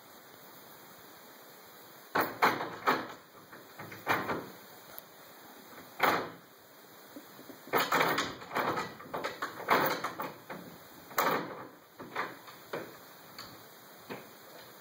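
Closed wooden interior door rattling in its frame, its latch and lever handle knocking and clattering in irregular bouts that start about two seconds in and die away near the end.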